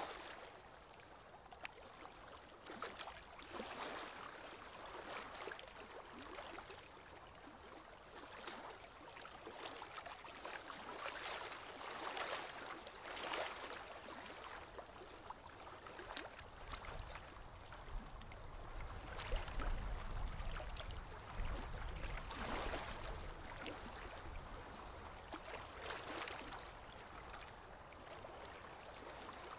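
Colouring strokes scratching and swishing across Bristol paper, irregular, about one stroke a second. A low rumble comes in for a few seconds past the middle.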